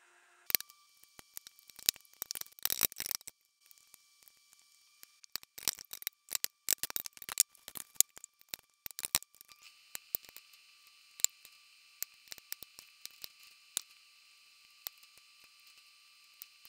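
Close-up eating sounds: chewing roast chicken with mouth clicks in scattered bursts, and a metal fork clicking now and then against a glass baking dish.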